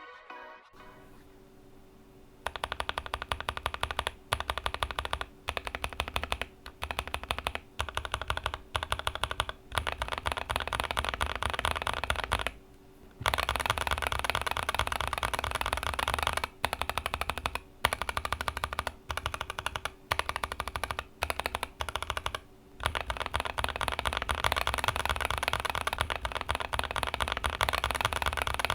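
Typing on a GK61x mechanical keyboard fitted with Gazzew Boba U4T tactile switches: fast runs of keystrokes broken by short pauses, starting about two seconds in.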